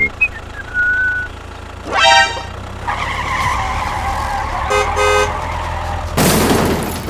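Tractor engine sound effect running steadily under horn sounds: one horn blast about two seconds in and two short toots about five seconds in. A loud rushing noise follows about six seconds in.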